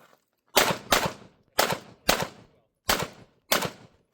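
Six pistol shots fired in quick pairs during a USPSA practical-shooting stage, each a sharp crack with a short ring-off.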